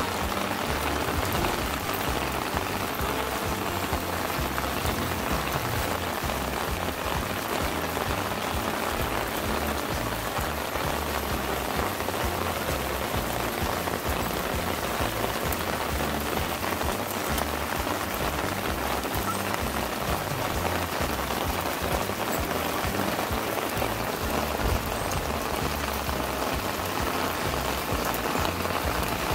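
Steady rain falling on a garden, an even hiss of many small drops.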